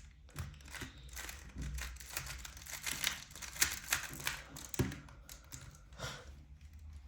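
Rubik's cube being turned by hand: an irregular run of quick plastic clicks and rattles as the layers are twisted.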